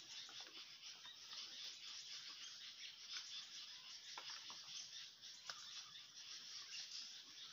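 Faint forest ambience: a steady high-pitched insect hiss with a few brief, faint bird chirps.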